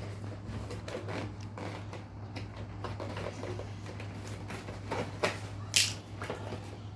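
Scissors snipping and pulling the plastic ties and packaging off a toy dinosaur: scattered small clicks and rustles, with one short sharp hiss near the end, over a low steady hum.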